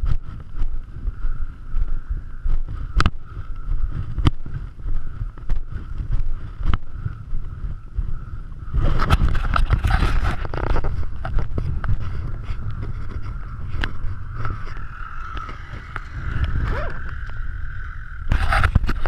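Dirt-bike engine running steadily under wind buffeting on a helmet-mounted action camera's microphone, with scattered knocks. From about nine seconds in the sound turns louder and rougher, and a little before the end the engine revs as an off-road motorcycle climbs the trail.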